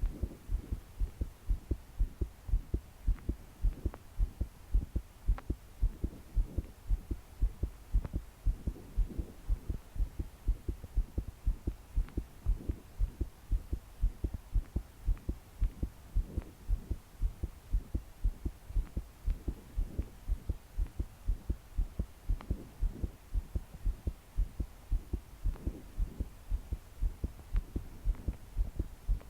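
A young woman's heartbeat recorded close to the body, pounding in a fast, regular run of low thuds. It is a racing heart with palpitations, each beat strong enough that her body was shaking.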